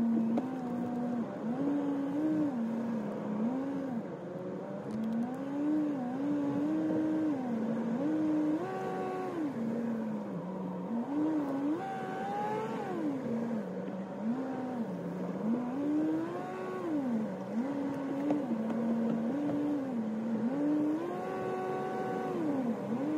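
Car engine and road noise heard from inside the cabin on a winding road. The engine pitch keeps rising, holding and falling back every second or two as the car speeds up and eases off through the curves.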